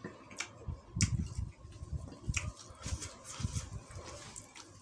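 A man chewing a mouthful of rice close to the microphone, with a metal spoon and fork clicking and scraping against a paper-lined plate several times.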